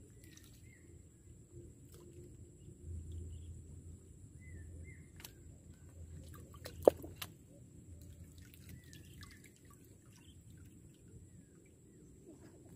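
Quiet outdoor ambience with a faint low hum and a few short, faint chirps, broken by a single sharp click about seven seconds in.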